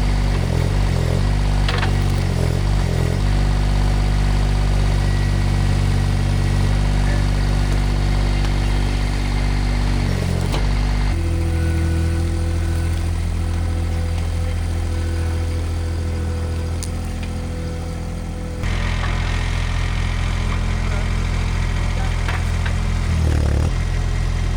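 Mini skid steer engine running steadily. Its note changes about eleven seconds in and again near nineteen seconds.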